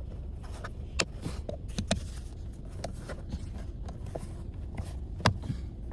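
A few sharp clicks and knocks, likely parts and tools being handled during reassembly of a car's steering-column switch area: one about a second in, one near two seconds and one just past five seconds, over a steady low rumble.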